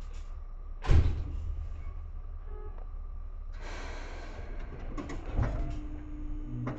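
Sliding passenger doors of a Seibu 2000 series electric train, heard from inside the car: a heavy thud, a short burst of air hissing, then a second thud, over a steady low hum of the stopped train. A steady tone from the car's equipment comes in near the end.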